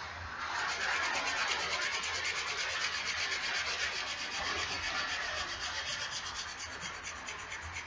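Sandpaper pressed flat under a thumb and rubbed in quick, even, repeated strokes along the bevel of a steel axe blade to sharpen the edge.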